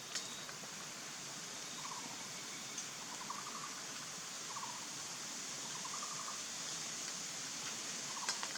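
Collared owlet giving five short, pulsed notes about a second or so apart over a steady high hiss, with a sharp click near the start and another near the end.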